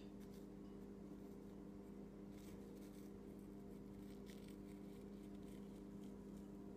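Faint, intermittent scratching of a table knife tip drawn through grains sprinkled on a pancake on a plate, over a steady low hum.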